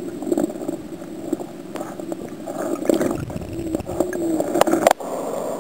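River water heard through an underwater camera: a muffled, steady rushing with scattered clicks and knocks. The sound drops out briefly near the end.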